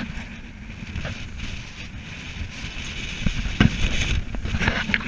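Wind buffeting the microphone over water rushing along the hull of a 35-foot sailboat under way, with a few sharp knocks, the loudest about three and a half seconds in.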